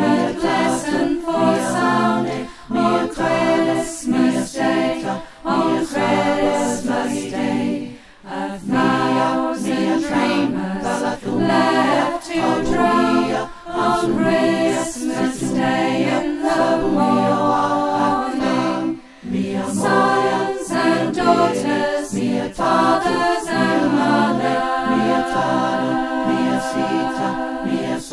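A choir singing a cappella, several voices sounding together in harmony.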